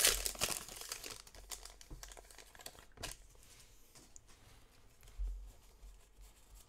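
Pokémon trading cards and their foil booster-pack wrapper crinkling and rustling in the hands as the cards are shuffled and sorted, loudest in the first second, then quieter handling with a small click near the middle.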